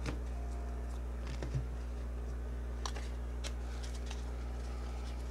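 Trading cards being handled and sorted by hand, a few faint taps and flicks of card on card, over a steady low electrical hum.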